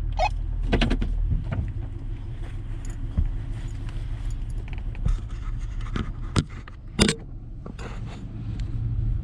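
Off-road truck engine idling with a steady low hum, with several sharp clicks and knocks over it, the loudest about seven seconds in.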